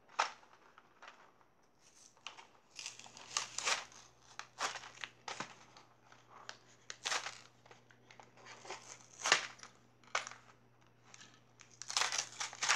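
Thin plastic blister packaging crinkling and its cardboard backing card tearing as a toy pack is pulled open by hand, in irregular bursts of crackling, with the loudest bursts in the middle and near the end.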